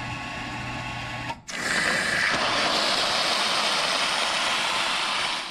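Everbilt 1/2 hp shallow well pump motor running with a steady hum. About a second and a half in, a loud, steady rush of water takes over as a strong jet sprays from the open PVC outlet pipe under pump pressure.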